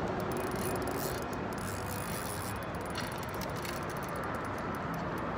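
Fishing reel clicking as a hooked fish is played on the line, over a steady rushing background.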